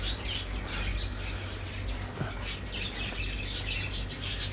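Many small caged birds chirping, their short high calls overlapping, over a steady low hum.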